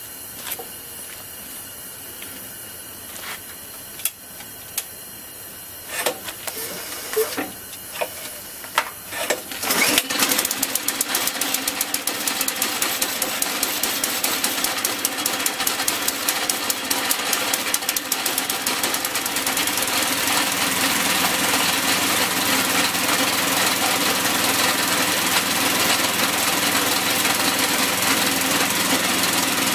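Predator 212cc single-cylinder OHV engine (a Honda clone) on a snowblower, pull-started and catching on the first pull about ten seconds in, then running steadily, a little louder from about twenty seconds. Before it starts there is a steady hiss with a few clicks and knocks.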